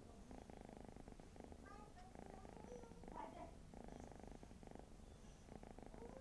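Domestic cat snoring: a faint, fast buzzing rumble that comes in breath-long stretches with short gaps between them.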